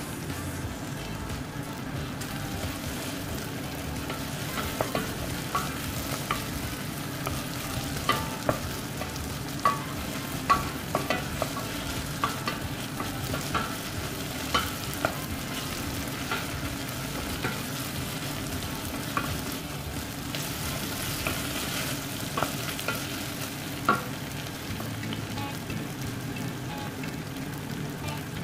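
Sliced red onions and chopped chillies sizzling in a stainless steel pot, stirred with a wooden spatula that knocks against the pot irregularly from about four seconds in until a few seconds before the end.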